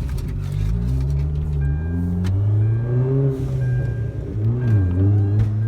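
Hyundai Genesis Coupe's turbocharged four-cylinder engine accelerating under load. The revs climb during the first couple of seconds, change about two seconds in, then hold fairly steady with a brief dip later on.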